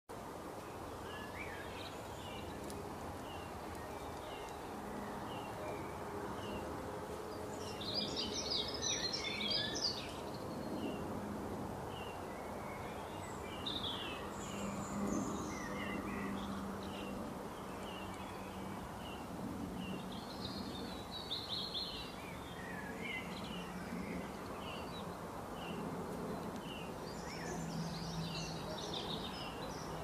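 Birds chirping: short chirps repeat throughout, with denser flurries of twittering about eight seconds in, around twenty-one seconds and near the end, over steady background noise.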